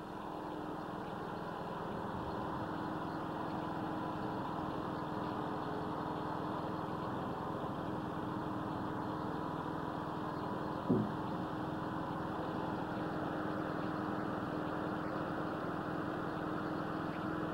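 Engine of a mobile dimension sawmill running at a steady speed. It grows slightly louder over the first two seconds, and a brief higher sound cuts in once about eleven seconds in.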